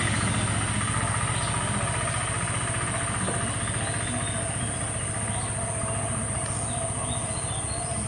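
An engine running steadily with a low rumble, slowly fading, with a steady high whine and a few faint bird chirps over it.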